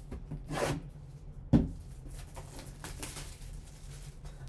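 Handling noise from a sealed trading-card box being picked up and turned over: a short rustle, one sharp knock about a second and a half in, then light rustling of the box and its wrapping.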